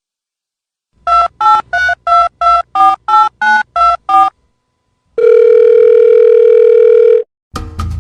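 Telephone keypad dialing: eleven short two-note touch-tone beeps at about three a second, then after a brief pause one loud steady tone lasting about two seconds.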